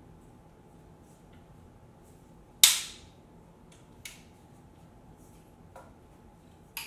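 Flip-lever leg locks on a Vanguard Veo 204AB aluminium tripod snapping shut: one sharp, loud click about two and a half seconds in, then three fainter clicks over the next four seconds.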